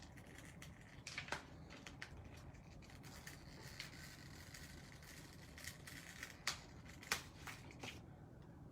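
Faint handling of small papercraft supplies on a desk: light rustling with scattered sharp clicks, the loudest about a second in and about seven seconds in.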